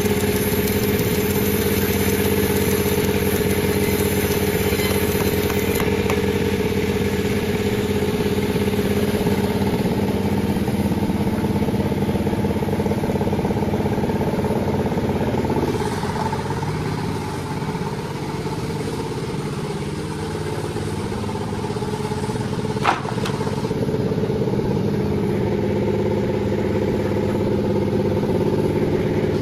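Panda36 sawmill's engine running steadily. A little past halfway its tone drops and thins for several seconds, then the steady running returns, with a single sharp click just before it does.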